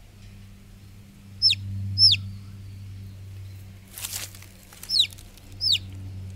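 A young chick peeping: four sharp, high calls that each drop quickly in pitch, in two pairs, while it is held in a hand and dabbed with herbal paste on its pox sores. A brief rustle comes between the two pairs.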